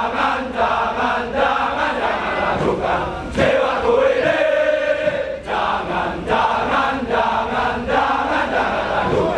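A large group of soldiers chanting a military yel-yel in unison, a rhythmic call of many men's voices, with a long held note about four seconds in.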